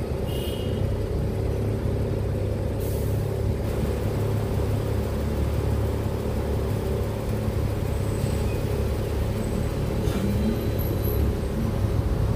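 City bus engine running steadily, heard from inside the bus. A short air hiss comes about three seconds in.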